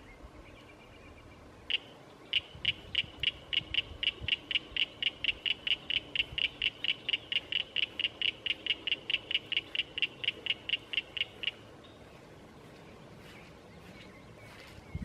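A frog calling: a long, even series of high, clicking notes, about four a second, that starts a couple of seconds in and stops abruptly about two-thirds of the way through.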